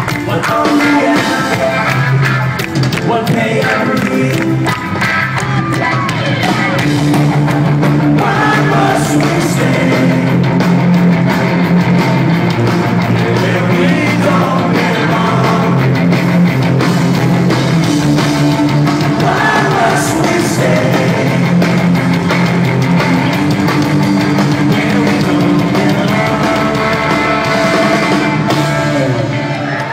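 Punk rock band playing live: distorted electric guitars, bass and drums, with sung vocals, heard loud from within the crowd.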